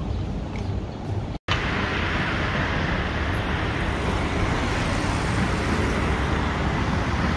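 Steady road traffic noise, a continuous rumble and hiss of passing vehicles, with a brief total dropout about one and a half seconds in.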